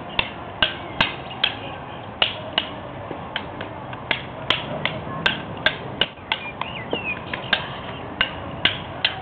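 Rattan arnis sticks clacking together in a two-man stick-fighting drill: a quick, fairly regular string of sharp clacks, about two or three a second.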